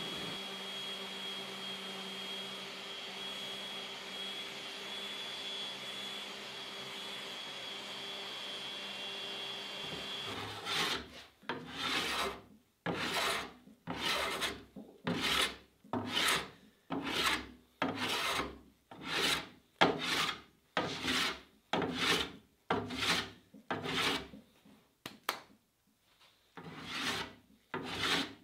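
A steady hum with a thin high whine for about ten seconds. Then a hand tool is drawn along the edge of an old wooden table rail held in a vise, giving rhythmic scraping strokes about one a second, with a brief pause near the end.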